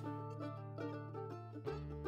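Quiet background music: a plucked string instrument picking a melody over a held low bass note.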